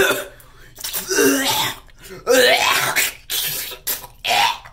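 A girl coughing and gagging in about four harsh bursts, each under a second, after chewing celery.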